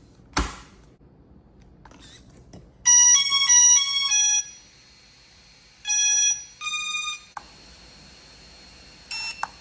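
Electronic power-on beep tune of a fishing drone system: a quick run of stepped beep tones, followed by two shorter beep groups a couple of seconds later and one brief beep near the end. A sharp click comes just before the tune.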